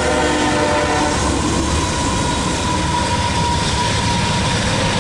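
Freight diesel locomotives' horn sounding its chord, fading out about a second in, then the lead locomotives running past close by, the engines and wheels steady and low. A thin steady tone sounds over them for a few seconds.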